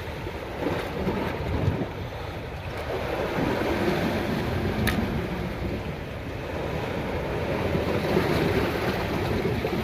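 Sea waves washing against the rocks, with wind buffeting the microphone.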